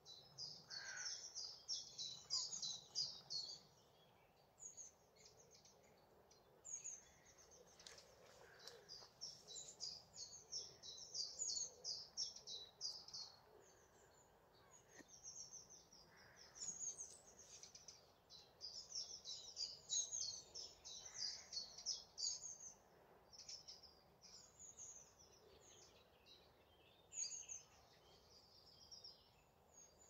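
Small songbirds singing: rapid, high-pitched chirping phrases a few seconds long, coming again and again with short pauses between them.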